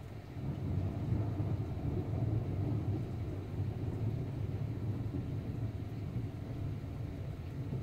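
Thunder rolling: a low rumble that swells about half a second in and carries on without a break.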